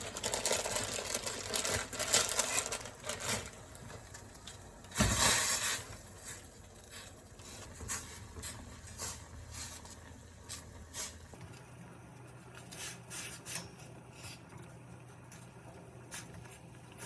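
Kitchen handling sounds while instant noodles are prepared: rustling and scraping, a louder burst of noise about five seconds in, then scattered light clicks and taps. A low steady hum comes in a little past the middle.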